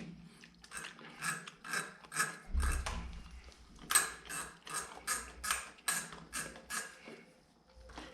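Tool clicking in short strokes, about three a second, as the clutch cable adjuster on a Yamaha R1 RN12 is turned. The clicks stop about a second before the end.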